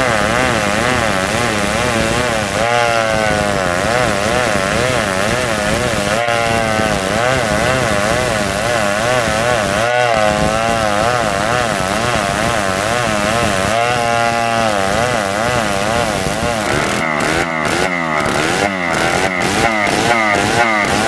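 Old two-stroke chainsaw at full throttle ripping a damar log lengthwise into boards, its engine pitch wavering as the chain cuts. Near the end the engine note pulses about two or three times a second.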